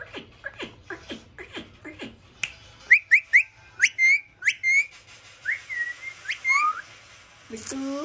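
Indian ringneck parakeet calling: a quick run of short squeaky chirps, then a string of short whistled notes that rise and level off, some gliding up or down.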